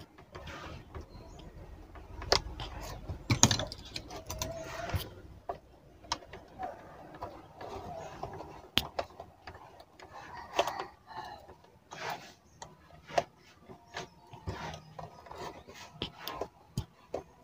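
Plastic clicks, knocks and rubbing from hands handling and reassembling a blender's motor base and its power cord. The sharpest knocks come about three seconds in.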